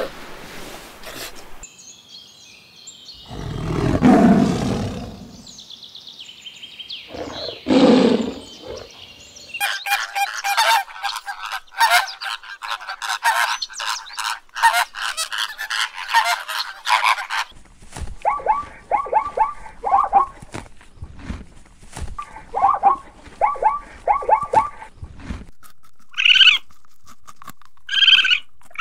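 A sea lion barking with two deep, loud calls a few seconds apart. Then a flock of flamingos honking and chattering in a dense, continuous clamour, followed by a run of rapid repeated calls from another animal and a few short high calls near the end.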